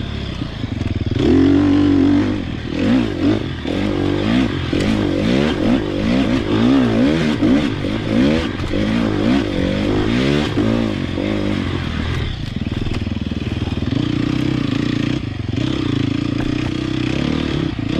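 Sherco SEF 300 single-cylinder four-stroke enduro motorcycle engine, revved up and down in quick repeated throttle swings for about ten seconds, then running at a steadier speed for the last several seconds.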